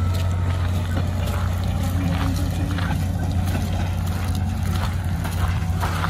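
An engine running steadily with a low hum, with scattered clicks and knocks over it.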